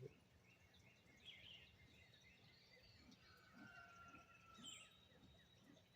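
Near silence, with faint birds chirping and whistling in the background.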